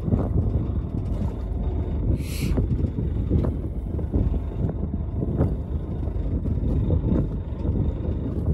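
A fishing boat's low rumble, with wind buffeting the microphone in irregular gusts. There is a brief high hiss a little over two seconds in.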